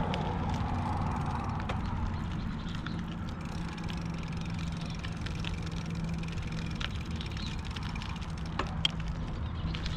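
Bicycle rolling along a paved path: a steady low rumble with a faint low hum, scattered light clicks and rattles from the bike, and one sharp click about nine seconds in.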